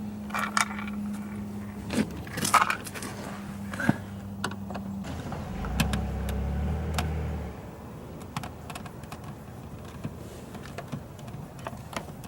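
Small metallic clicks and clinks of hand tools and screws as the door handle's screws are taken out of a car door, over a steady low hum that stops about five seconds in. A brief low rumble follows around six to seven seconds in.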